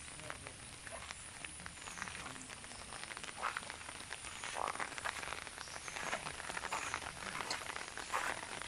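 Frogs croaking, short repeated calls that become louder and more frequent in the second half, over a steady crackling and rustling outdoor background.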